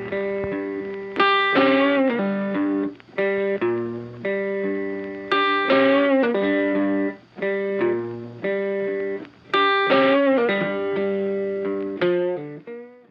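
Background music: a plucked guitar melody of separate picked notes, with a few bent, wavering notes, that cuts off suddenly at the end.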